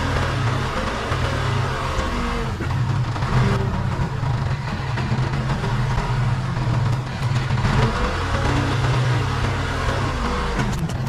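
Case 580 Super K backhoe loader's diesel engine running under working load, its note rising and falling, with short squeaks now and then.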